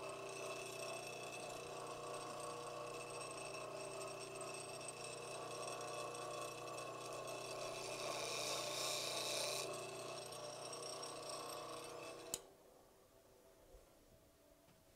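Bench grinder running with a steady hum while the edge of a lathe turning tool is ground freehand on the wheel. The grinding hiss grows louder and brighter for about two seconds in the middle. The sound cuts off suddenly with a click a little after twelve seconds in.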